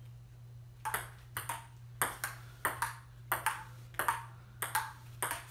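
Table tennis rally: the ball clicks off the paddles and the table in quick pairs, about one pair every two-thirds of a second, starting about a second in. A steady low hum runs underneath.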